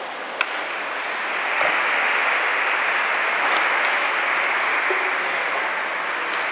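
Audience applauding: a dense, steady clapping that swells in about a second and a half in and eases off near the end. A single click comes just before it.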